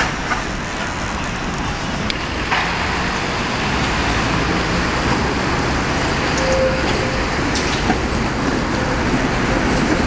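A Tatra T3 tram running past on a curve: steady rumble of wheels and motors on the rails, with a few sharp clicks and a brief whining tone a little past halfway.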